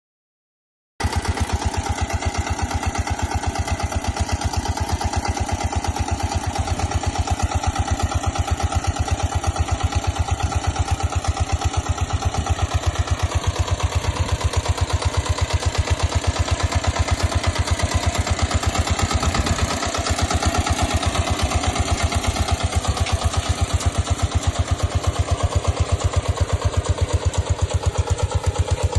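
Engine of a homemade jugaad farm tractor running steadily with a rapid, even thumping beat. It comes in suddenly about a second in.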